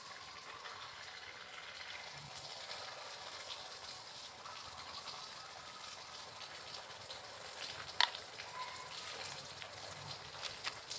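A steady, even rushing hiss, like running water, with scattered faint clicks and one sharp click about eight seconds in.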